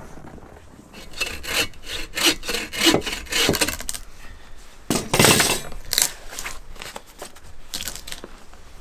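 Hand saw cutting through a downed log in quick back-and-forth rasping strokes, with one louder, longer stroke about five seconds in.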